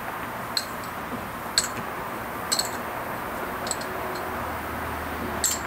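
Light clicks and taps, about one a second, as sugar is tipped and knocked out of a small bowl into a plastic blender jar, over a steady background hiss. A low hum comes in about four seconds in.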